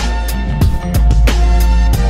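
Background music with a steady drum beat, about three hits a second, over heavy bass.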